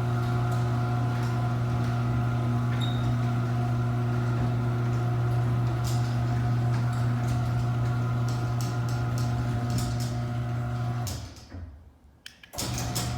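Chamberlain C410C 1/2 HP chain-drive garage door opener running with a steady motor hum and light chain clicking. The hum stops about eleven seconds in and starts again a second or so later.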